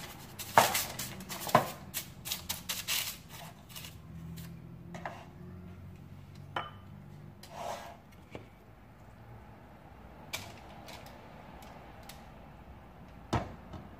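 Parchment paper crinkling and rustling as it is pressed into a tube cake tin, then a few scattered light knocks and clinks of kitchen bowls and tins, the sharpest near the end.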